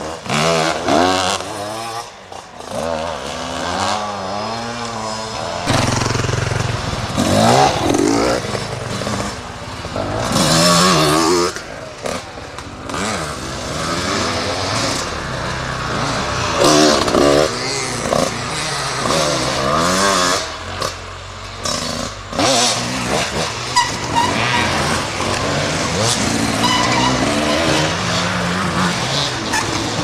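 Enduro dirt bike engines revving as several bikes ride past one after another, the engine pitch rising and falling again and again with throttle and gear changes.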